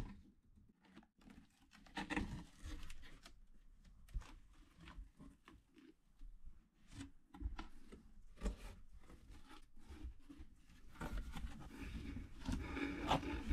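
Cardboard shipping box being handled and opened: scattered rustles, scrapes and small knocks of cardboard. The handling gets busier near the end as a plastic pump bottle is grabbed from the bottom of the box.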